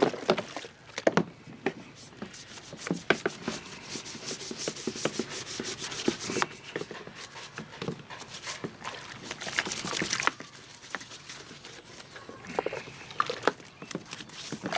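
Stiff brush scrubbing a black plastic outboard cover panel in a tub of soapy water, in quick irregular back-and-forth strokes.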